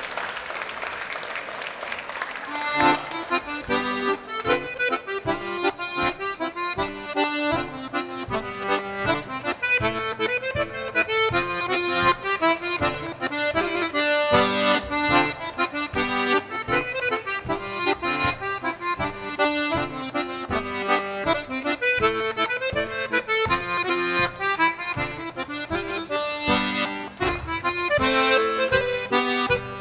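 Applause dying away, then a diatonic button accordion starts an old-time dance tune about three seconds in, the melody over a steady rhythm of bass notes and chords.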